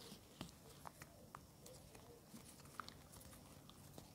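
Near silence, with a dozen or so faint scattered clicks and ticks of heavy monofilament fishing line being handled and gripped in the teeth while a dropper loop is tied.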